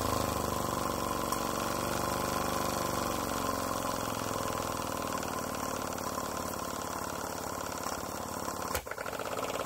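Graham Industries VR1A double-acting model steam engine running fast on live steam, a rapid even chuffing. Its pitch falls a little in the first couple of seconds as the steam is turned down and the engine slows, then holds steady.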